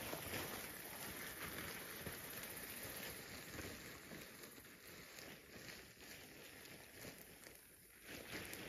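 Canvas tarp rustling and crackling as it is shaken out and folded, with a loud flap right at the start and another swell of rustling near the end.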